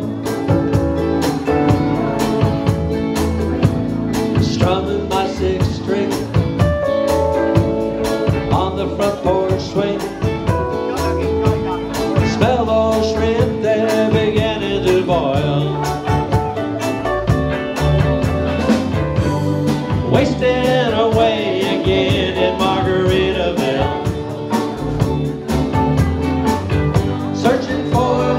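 A live band playing amplified music, with electric guitars over a drum beat and a voice singing along at times.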